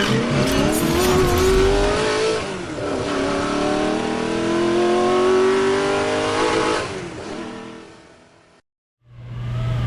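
A car engine accelerating hard: its pitch rises, drops once as it shifts up about two and a half seconds in, rises again through the next gear, then fades away.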